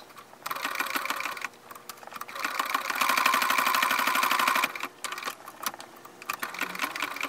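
Electric sewing machine stitching through fabric and a hook-and-loop Velcro strip. A short run comes first, then a longer, louder run from about two seconds to nearly five seconds in, then a few light clicks as the work is handled.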